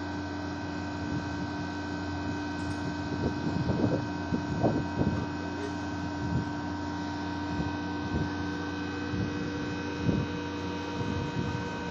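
Large hydraulic excavator's diesel engine running at a steady idle, a constant hum with several fixed tones, with a few light knocks in the middle and near the end.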